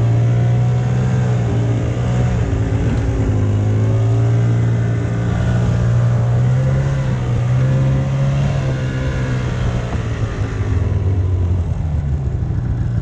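Arctic Cat Bearcat 570 XTE snowmobile's two-stroke engine running under way, its note rising and falling a little with the throttle and easing lower near the end.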